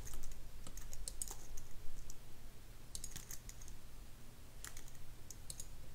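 Computer keyboard keystrokes and clicks, coming in small irregular clusters, over a steady low hum.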